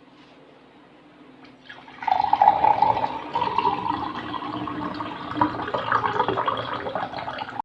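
Water running, starting about two seconds in and continuing steadily until it cuts off at the end.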